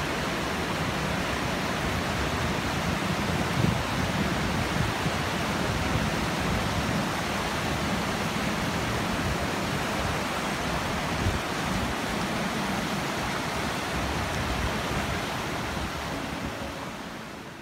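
Steady rush of a fast, rocky mountain river, fading out near the end.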